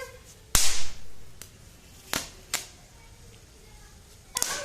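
Chatpat firecrackers going off in sharp cracks: one loud crack with a short hissing tail about half a second in, two smaller cracks around two seconds in, and a quick cluster of cracks near the end.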